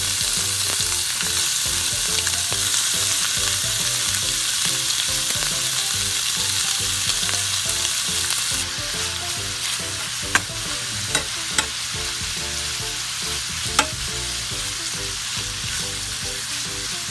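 Chopped bacon sizzling as it fries in a stainless steel pan, a steady hiss. About nine seconds in the sizzle drops a little, and a few sharp clicks follow as the bacon is stirred with a metal spatula.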